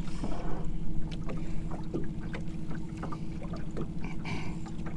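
A boat's motor running with a steady hum, with scattered faint clicks over it.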